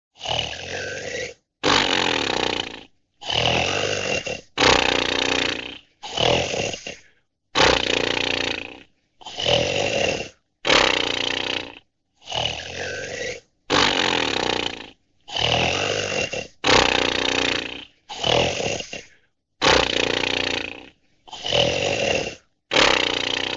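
A run of about sixteen short, rough growling or roaring sound effects, each around a second long, one after another with short silent gaps.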